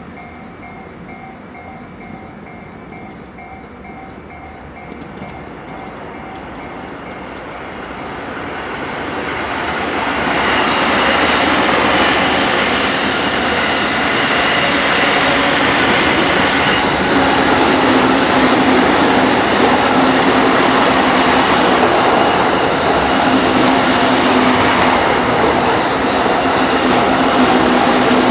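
Japanese level-crossing alarm ringing in steady repeated dings, then an electric train comes through from about eight seconds in, its wheels and running gear loud on the rails and drowning out the bell, with a low steady hum under the noise while it passes.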